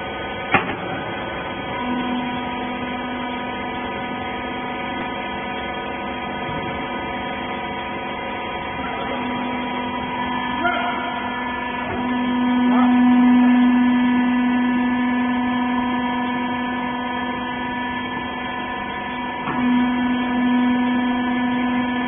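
Hydraulic power unit of a horizontal wiper bagging baler running with a steady hum, which grows louder about twelve seconds in as the ram compresses the rags and then slowly eases. A sharp click comes about half a second in.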